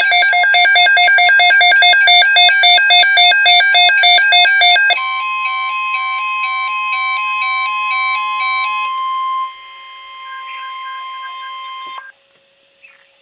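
Midland WR-100 weather radio sounding its electronic alert: a loud, rapid warble alternating between two tones. About five seconds in, a steady single-pitch alert tone joins under a changed warble. It goes on alone and quieter and cuts off suddenly near the end. This signals a weather alert being received, here a severe thunderstorm watch.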